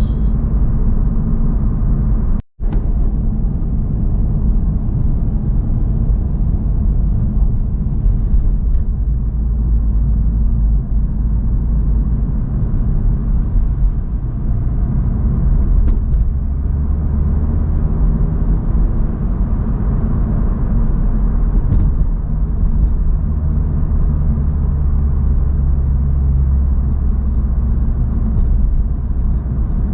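Honda Civic Type R (FL5) being driven: a steady low rumble of road and engine noise. There is a brief drop-out about two and a half seconds in.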